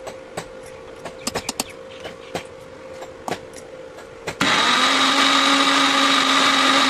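A few sharp clicks and taps on a mixer grinder's steel jar, then about four seconds in the electric mixer grinder starts suddenly and runs at a steady pitch, grinding roasted sponge gourd flowers with salt and oil into a coarse chutney.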